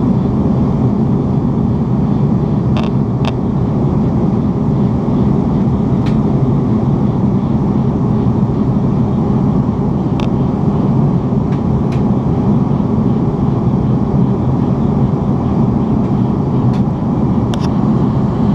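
Steady cabin noise of an Airbus A310 airliner in flight, a low, even rumble of engines and airflow heard from a window seat, with a few faint clicks scattered through it.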